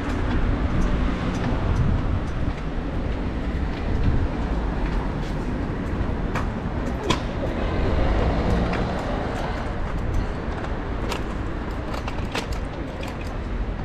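City street ambience: a steady rumble of traffic, with scattered sharp clicks.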